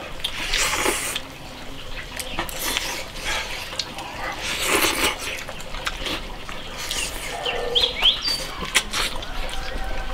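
People eating from bowls with chopsticks: several loud wet slurps of broth, about half a second to a second each, between chewing, with sharp clicks of chopsticks against the bowls.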